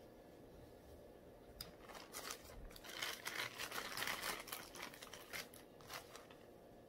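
Crinkling and rustling of something crinkly being handled, a dense patter of crackles starting about two seconds in, loudest near the middle, and dying away shortly before the end.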